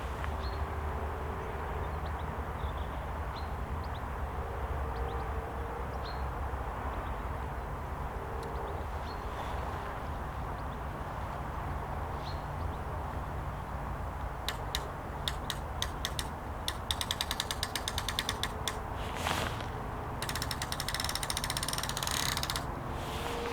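Fishing reel ratchet clicking in two quick runs about fifteen and twenty seconds in, the second run denser, over a steady low rumble.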